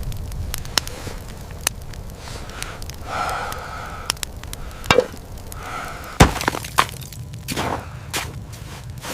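A series of sharp knocks and cracks, irregularly spaced, the loudest about five and six seconds in, over a steady low rumble.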